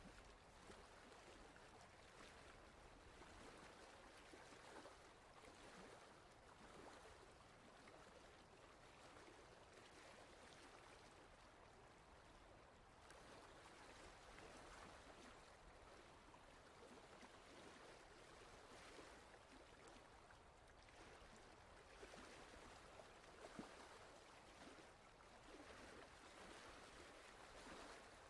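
Faint, steady sound of running water, gently rising and falling in level.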